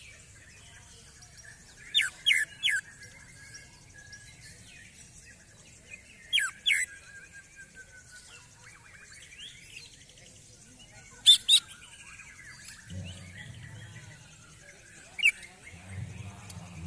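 Male greater green leafbird (cucak ijo) singing: loud, sharp, downward-sweeping whistled notes in quick groups of two or three, repeated several times over softer continuous chattering. This is the vigorous, agitated song that keepers call "emosi".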